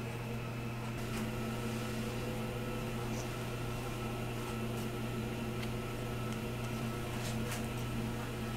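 Steady electrical hum of a running kitchen appliance, even in pitch and level, with a few faint light ticks.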